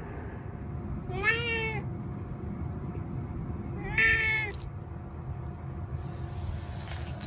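Domestic cat meowing twice, about a second in and again about four seconds in. Each is a short call that rises and falls in pitch.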